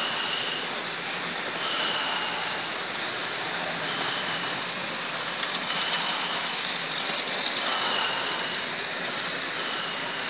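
Several electric model trains running on a layout: a steady whirring rumble of motors and wheels on track, with a short high squeak that recurs about every two seconds.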